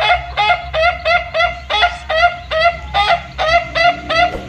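Domestic fowl calling: a fast, even run of short honking notes, about three a second.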